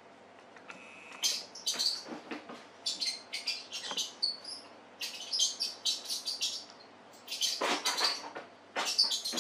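Mouse squeaks from a cat-game video played on a TV: clusters of quick, high chirpy squeaks that come and go.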